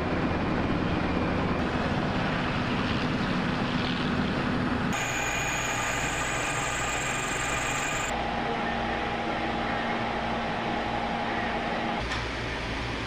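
Machine-shop machinery running steadily: a low drone, then a high steady whine from a vertical milling machine for about three seconds, then a lower steady motor hum.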